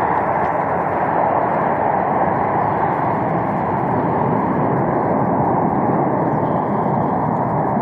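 Loud, steady jet engine noise from a wide-body airliner passing close by, an even rushing roar with no distinct tones.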